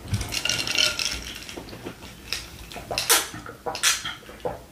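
Close mouth sounds of a person chewing a mouthful of food, with a series of short wet smacks and clicks, the loudest about three and four seconds in, then sipping water from a glass near the end.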